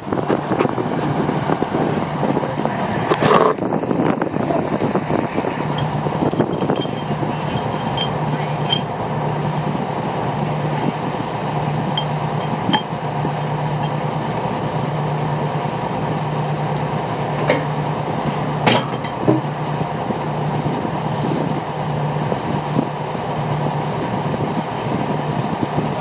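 Pulling unit's engine running steadily with a low hum, and a couple of sharp clanks as the crew handles tubing, the loudest about three seconds in and again near nineteen seconds.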